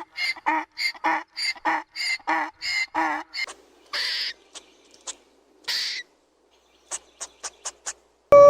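Bird calls: a quick series of about a dozen calls, roughly three a second, then two longer, harsher calls, and a run of five short, sharp, high notes near the end.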